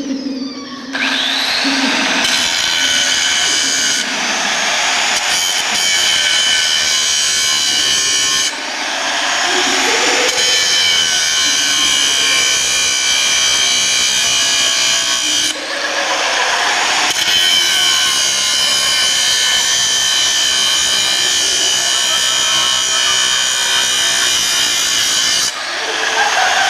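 Angle grinder grinding steel, starting about a second in: a loud steady whine over a hiss of grinding. It eases off and bites back in three times.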